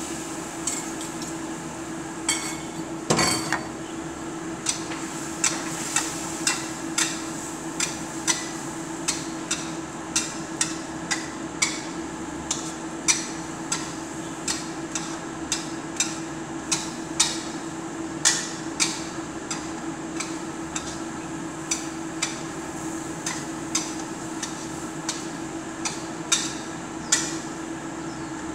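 A metal spatula clinking and scraping against a wok while ampalaya (bitter gourd) and egg are stir-fried: irregular sharp clanks about once or twice a second, over a steady hum.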